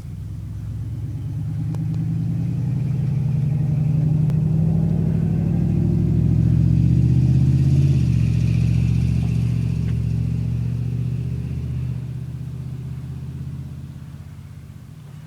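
A long, loud, low rumble that swells over several seconds, holds, and then slowly fades away.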